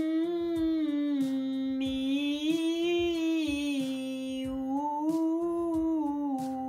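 A woman's alto voice singing a resonance vocalise on a single breath: a hummed 'mm' that opens into 'mi' and then 'ou', the pitch rising and falling over a few notes three times.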